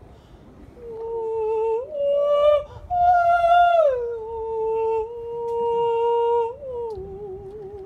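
Wordless humming in long held notes that step up and then slide down about four seconds in. The last note wavers near the end.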